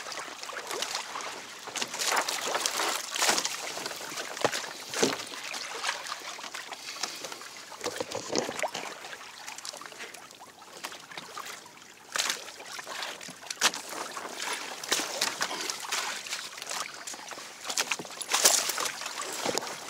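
Sea water lapping and splashing against a kayak's hull, with scattered knocks and rustles as a landed sea bass is handled aboard.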